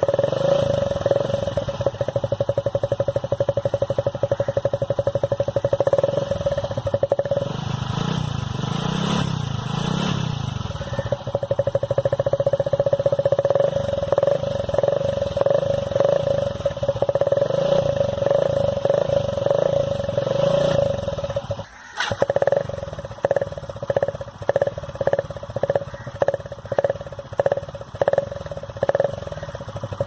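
Motorcycle engine running with its exhaust blowing into a plastic bottle hung just in front of the silencer outlet, which changes the exhaust note to sound almost like a KTM bike. The note swells briefly about nine seconds in, drops out for a moment after about twenty-two seconds, and then pulses at a little under two a second.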